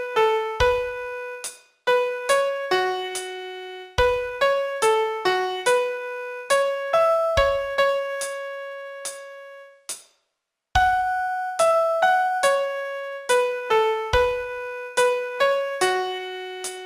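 Solo piano playing a slow melody one note at a time, each note struck and left to fade, with an occasional low bass note. There is a short silent pause about ten seconds in.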